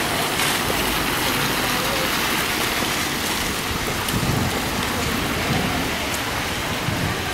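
Heavy rain falling on a wet paved street, a steady hiss.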